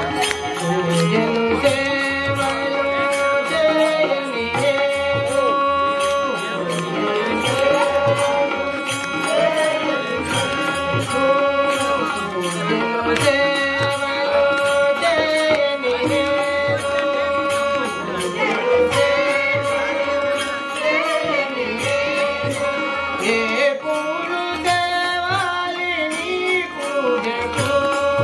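Telugu village bhajan: devotional singing with percussion keeping a steady beat, the voice holding long notes that bend up and down between phrases.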